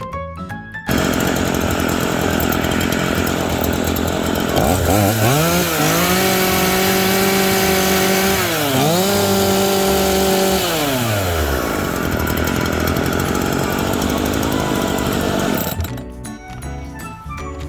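Dolmar PS-420 two-stroke chainsaw running after its cylinder's spark-plug threads were repaired. It runs rough at idle, then is revved up and held at high speed, dips once briefly, revs back up and falls back to idle. Background music plays briefly at the start and again near the end.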